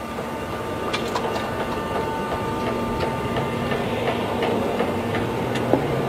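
Steady hum and thin whine of running jet aircraft equipment on a flight line, with scattered light clicks and taps and a sharper tap near the end.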